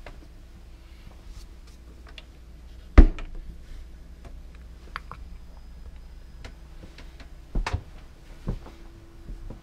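Varnished wooden engine-room door on a yacht pushed shut with one sharp knock about three seconds in, followed by a few lighter knocks and clicks, over a steady low hum.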